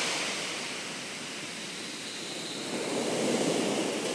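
Ocean surf washing onto a sandy beach: a steady rushing that eases off, then swells again about three seconds in.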